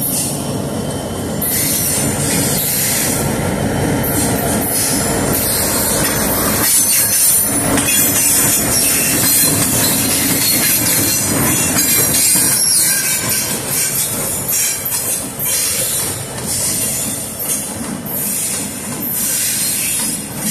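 Norfolk Southern diesel locomotives running light past at close range: engines running, wheels clacking over the rail joints and squealing. The sound is loudest as the lead unit passes, about six to twelve seconds in.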